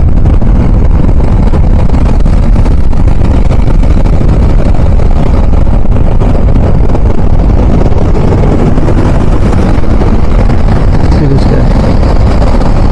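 Motorcycle riding noise: wind rushing over a helmet-chin-mounted Maono external microphone fitted with a foam sponge and a furry dead-cat windscreen, mixed with the motorcycle's engine and road noise. The noise is loud and steady, with most of its weight low down: the wind rumble the windscreens are meant to reduce.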